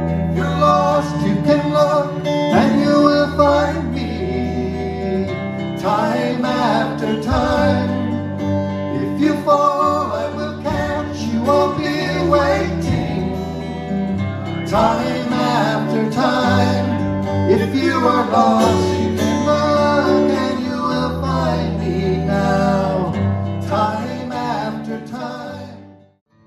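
Live acoustic guitar strummed under a man singing a song. The music fades out near the end.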